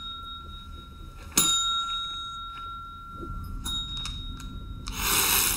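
Countertop service bell struck once with a bright ding about a second and a half in, ringing on and slowly dying away, with a fainter ring later on. A short loud rush of hissing noise comes near the end.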